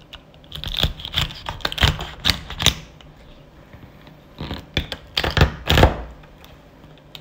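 Kitchen knife cracking through snow crab shell and knocking on a wooden cutting board: quick runs of sharp crunches and taps, one cluster starting about half a second in and another about four and a half seconds in.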